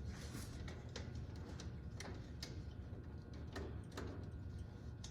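Irregular light clicks and taps of small metal parts being handled while a light switch is worked into place on a garden tractor, over a low steady hum.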